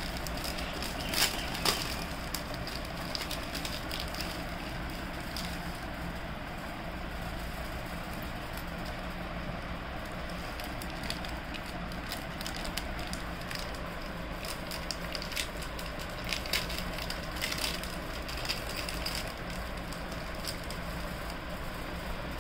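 Plastic jewellery packets crinkling and clicking now and then as they are handled. The two sharpest clicks come about a second in, over a steady low hum.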